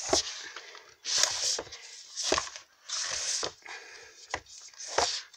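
Hardback books being slid and shuffled by hand in a stack: a series of short rustling scrapes and soft knocks, about one a second.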